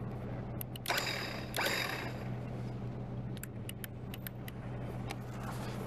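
A vehicle engine idling steadily. Two short scraping noises come about a second in, and a run of sharp clicks follows around the middle.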